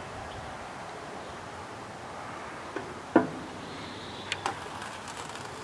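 A few light clicks and one dull knock about three seconds in, from a hand handling a metal electrical control box before lifting its lid, over quiet room tone.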